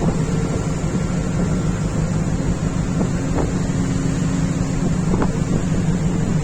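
A boat's engine running steadily in heavy wind and rough seas, with wind buffeting the microphone and a few short knocks.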